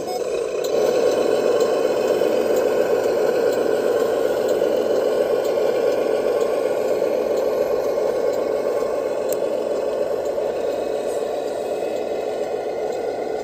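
Radio-controlled MAN truck driving with a trailer loaded with concrete blocks, a steady mechanical running sound that grows louder about a second in as it passes close and slowly eases off toward the end.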